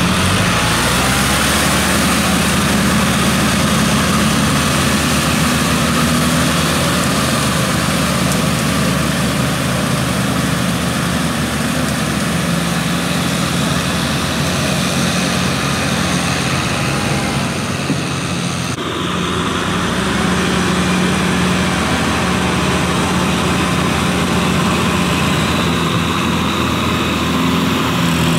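Kubota diesel tractor engines running steadily under load as they drive rotary tillers through a flooded paddy, a low hum under a steady hiss. The sound shifts abruptly about two-thirds of the way through as the view changes to another tractor.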